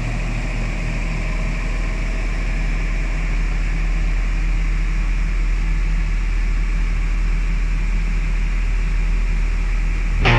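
A heavy diesel engine running steadily with an even low hum, as in earthmoving machinery at work. Music with guitar cuts in at the very end.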